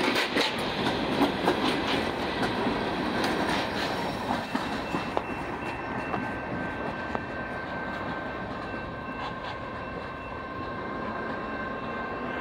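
The last freight cars of a long manifest train rolling past, their wheels clicking over the rail joints, then fading as the train pulls away down the track. A thin steady whine comes in about halfway through.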